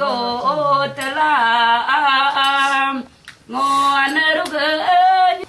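Voices singing in long held and gliding notes, a chant-like song, breaking off briefly a little after three seconds in before carrying on.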